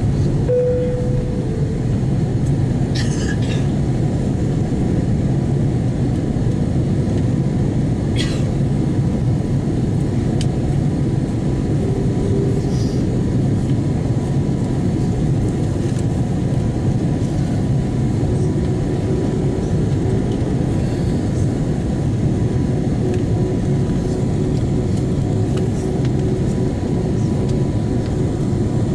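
Steady cabin roar of an Airbus A330-200 in flight, engine and airflow noise heard inside the cabin, with a faint steady whine. A short tone sounds just after the start, and there are a few faint ticks.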